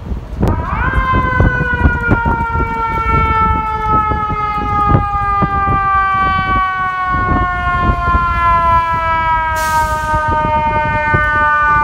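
FDNY fire engine's siren winding up sharply about half a second in, then sliding slowly and steadily down in pitch, over the rumble of the truck and street traffic. A short hiss comes near the end.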